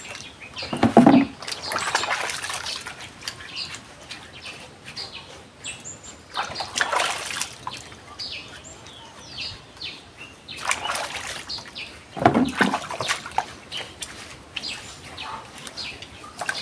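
Sweet potatoes being scrubbed and rinsed by hand in water, with irregular splashing and sloshing, loudest about a second in and again near twelve seconds.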